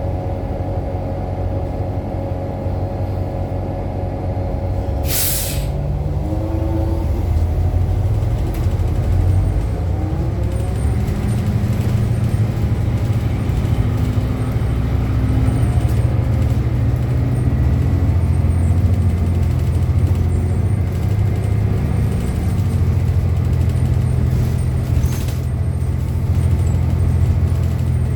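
2018 New Flyer XDE60 diesel-electric hybrid articulated bus running: a low drivetrain rumble with several whining tones that shift in pitch and grow louder about six seconds in as the bus pulls away. A short hiss of air about five seconds in and again near the end. This unit's sound is one the uploader finds strange compared with other buses of the same model.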